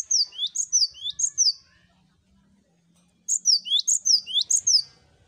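Cinereous tit (gelatik batu) singing: two short phrases of three quick, high, down-slurred notes each, the second starting about three seconds in.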